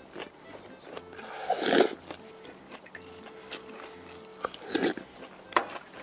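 A person eating close to the microphone, chewing and biting. A loud, noisy burst of eating sound comes about one and a half seconds in and a shorter one near five seconds, with a sharp click just before the end.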